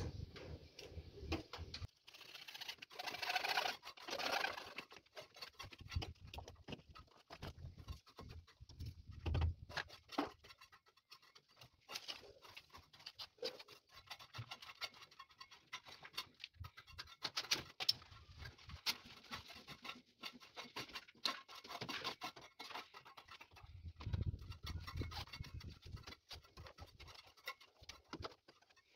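Faint scattered clicks, taps and scrapes of hand work on a steel breaker panel and PVC conduit, with a few low thumps now and then.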